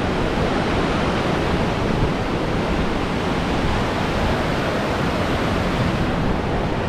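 Powerful, fast-flowing river water rushing steadily beneath a bridge, a loud even noise.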